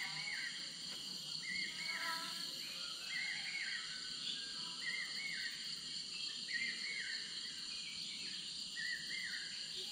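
Dawn ambience: a steady high insect drone, with a bird repeating a short rising-and-falling call about every second and a quarter.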